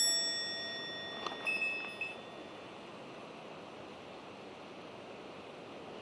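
A bright, ringing chime sound effect at the start, with a second, higher chime about a second and a half in, both fading within a couple of seconds. Then a steady rush of water from the waterfall pouring into the plunge pool.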